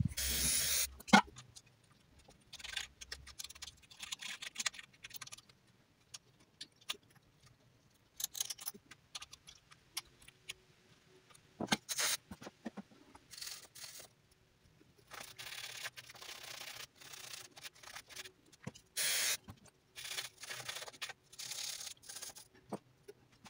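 Irregular short bursts of hand scraping and rubbing: a drill bit used like a file to pick old RTV sealant out of the engine block's bolt holes and off the oil sump flange.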